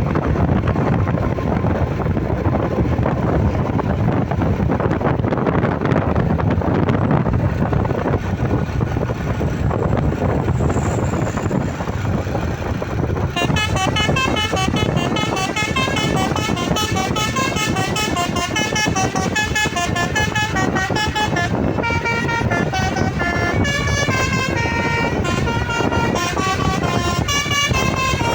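Steady rumble of vehicles on the road, then from about halfway a bus's basuri musical horn plays a tune of quick notes stepping up and down over the rumble.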